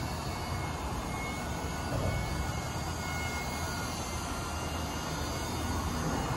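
Eachine E130 RC helicopter's electric motor and rotor whirring steadily in flight, with a faint high whine.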